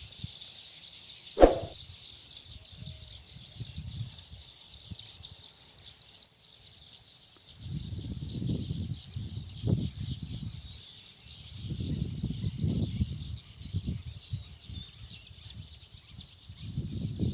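A single sharp shot from a PCP air rifle cracks out about a second and a half in. Behind it runs a steady high-pitched chorus of outdoor wildlife, and low rumbling noise comes and goes twice later on.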